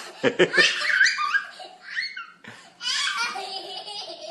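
People laughing hard, with short, quick bursts of laughter about the first half second in, then more high-pitched laughing.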